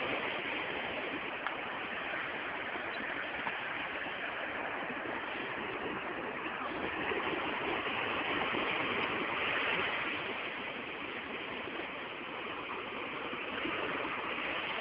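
Surf on a sandy beach: small waves breaking and washing up over the sand in a steady rush that swells a little about seven to ten seconds in and again near the end.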